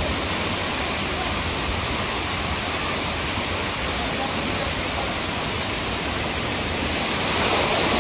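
Steady rush of water pouring and splashing from a water-play structure, growing louder about seven seconds in as its large tipping bucket dumps a cascade of water.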